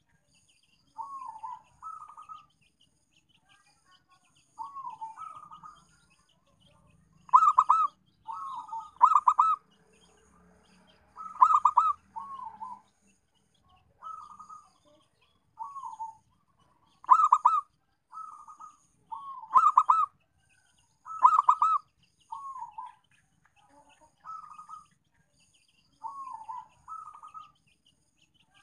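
Zebra dove (perkutut) cooing in short phrases of two or three rolling coos, repeated every second or two. Several notes in the middle are louder and fuller than the soft ones around them.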